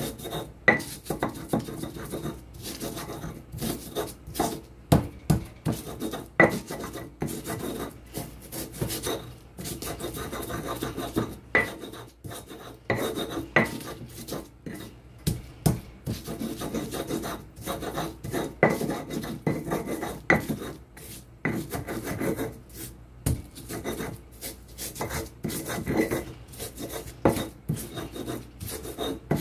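Stone pestle grinding and crushing shallots and garlic in a stone mortar (Indonesian cobek and ulekan). Irregular rasping and rubbing of stone on stone, with frequent sharp knocks as the pestle strikes.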